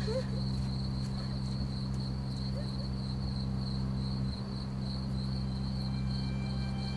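Crickets chirping steadily in a night ambience, over a low, steady hum.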